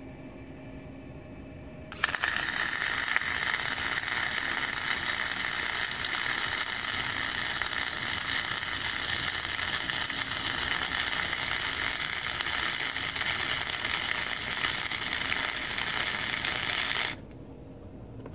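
Wire-feed welder's arc crackling steadily through one continuous weld bead. It starts abruptly about two seconds in, runs for roughly fifteen seconds, and cuts off sharply near the end.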